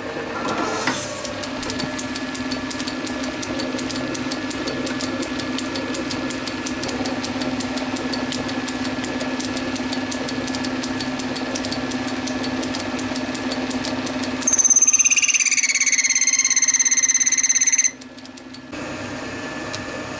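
Small metal lathe starting up about a second in and running steadily with a light ticking. From about 14 seconds a loud, high, slightly falling squeal lasts some three seconds and stops abruptly: the cutting tool squealing as it turns a groove in the brass spool valve.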